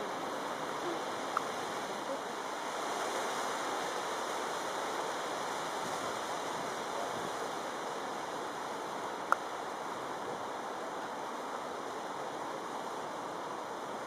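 Steady rushing outdoor background noise with no clear source, broken by two brief sharp clicks, one about a second and a half in and one about nine seconds in.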